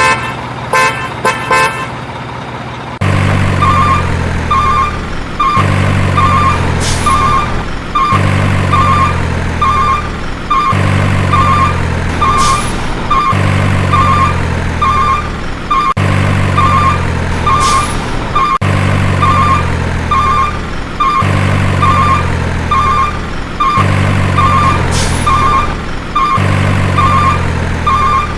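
An electronic toy-vehicle sound effect playing in a loop: a low synthetic engine hum and a run of short, high, evenly spaced beeps like reversing beeps, the whole pattern repeating about every two and a half seconds. A few scattered clicks and beeps come before the loop starts, about three seconds in.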